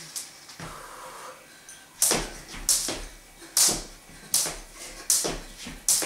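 Skipping rope slapping a laminate floor on each turn: a strike a little after the start, a pause of over a second, then a steady run of strikes about one every three-quarters of a second.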